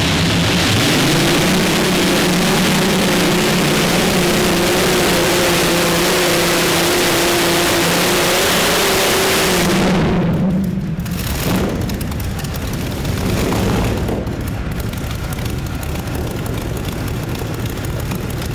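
Pulling tractor's racing engine running loud and steady at high revs while towing the weight sled. About ten seconds in, the sound drops suddenly to quieter, less steady engine noise.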